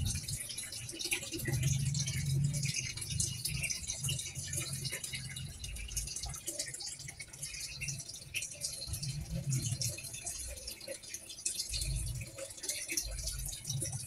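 Faint running water, trickling and dripping, with low rumbles coming and going.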